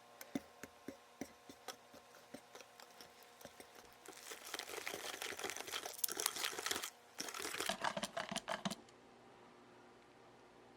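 Food-preparation handling sounds: scattered light taps and clicks, then about five seconds of dense crinkling and rustling that stops suddenly near the end.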